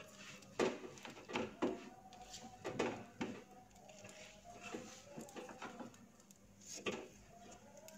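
Wooden spatula scraping and knocking a lump of cooked flour-and-tapioca dough around a non-stick frying pan: a few faint, separate scrapes and taps. The dough comes away from the pan without sticking, the sign that it is cooked.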